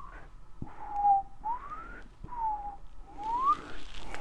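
A man whistling a short tune of four swooping notes, alternately falling and rising in pitch.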